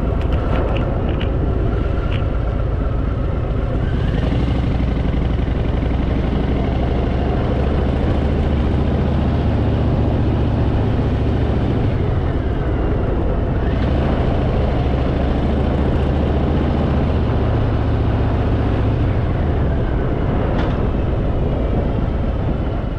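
Harley-Davidson Fat Boy's V-twin engine running on the move, mixed with steady wind rush. The engine note rises and falls a few times as the throttle is worked through the bends.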